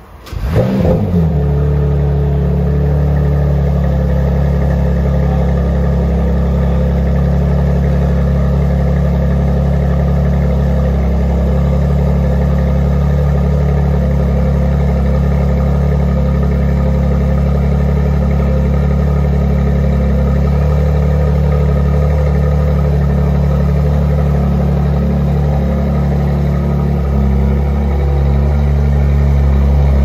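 McLaren Artura's 3.0-litre twin-turbo V6 starting up: a sudden flare of revs that falls away within about a second, then a steady idle. The idle grows slightly louder near the end.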